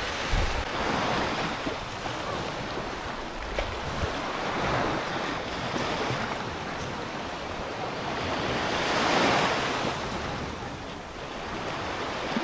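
Sea waves washing onto the shore, the surge rising and falling every few seconds with the biggest wash late on, with wind buffeting the microphone.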